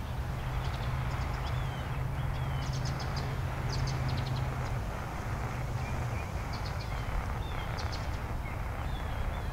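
Hissing static from a Tecsun PL-660 shortwave radio's speaker as it steps through memory channels, with a low hum that shifts about halfway through: heavy daytime band noise with no station heard. Short bird chirps sound over it now and then.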